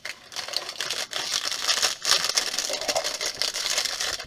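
Paper and plastic packaging rustling and crinkling as clip-brick set leaflets and parts bags are handled, with small clicks of plastic bricks throughout.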